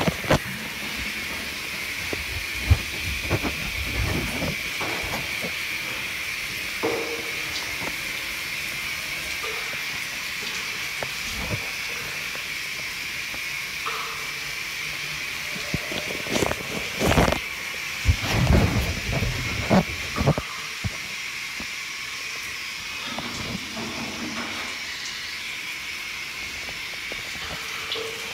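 Shower water spraying, a steady hiss, with a cluster of thumps and knocks about two-thirds of the way through.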